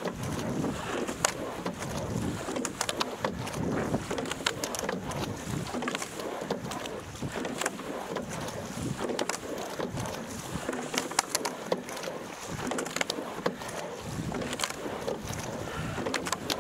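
Rowing scull under way at racing pace: water rushing along the hull and oar blades splashing in and out, with sharp clicks and knocks from the oars turning in the oarlocks. The sound swells and eases with each stroke, about every two seconds.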